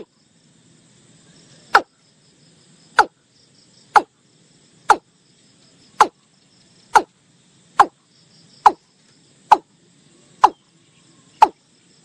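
Watercock calling: a series of short notes, each falling sharply in pitch, about one a second and gradually speeding up.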